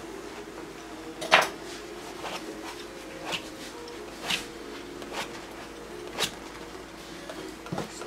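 Short, scattered scrapes and clinks of painting tools, a brush and palette knife working oil paint on the canvas and palette, the loudest about a second in, over a steady low hum.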